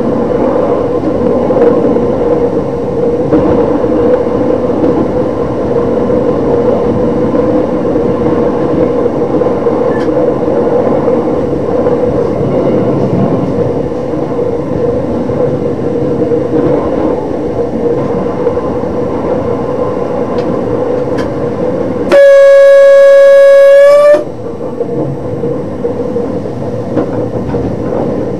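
DB class 628 diesel multiple unit running along the line, heard from the driver's cab: steady running noise with a constant hum. About three-quarters of the way in, the train's horn sounds one loud, steady blast of about two seconds.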